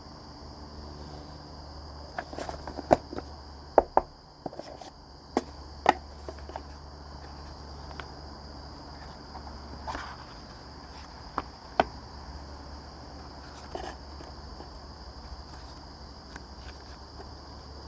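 Scattered sharp taps and clicks of an oracle card deck's box and packaging being handled, about a dozen in all, over a steady high-pitched hum.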